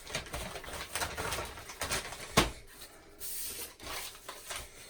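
Scattered clicks, knocks and rustling from handling tools and parts, with one sharp knock about two and a half seconds in.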